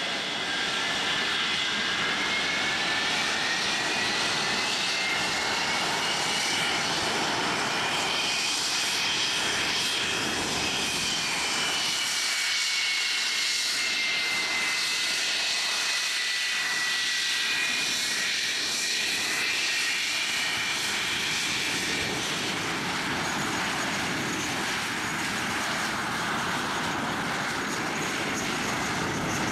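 English Electric Lightning's two Rolls-Royce Avon turbojets running. A high turbine whine rises over the first ten seconds or so and then falls back, over a steady rush of jet noise.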